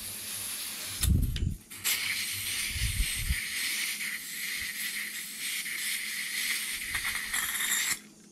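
Butane hissing from an upturned can into the fill valve of a LEXIVON LX-770 butane soldering iron as it is refilled. The hiss breaks off briefly about a second and a half in, with a few low bumps of handling, then runs on steadily until it cuts off suddenly about eight seconds in.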